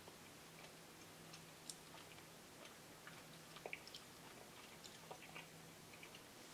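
Near silence with faint chewing: a person slowly chewing gritty stone-ground dark chocolate with coconut, heard as a few soft, irregular clicks and small crunches.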